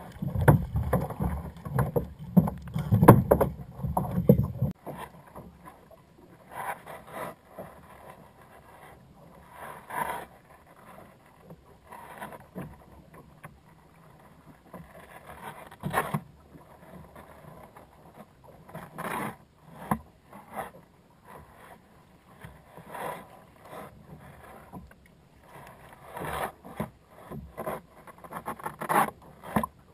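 Sea water slapping against a plastic kayak hull in short, irregular splashes every couple of seconds. A heavy low wind rumble on the microphone fills the first few seconds and cuts off abruptly.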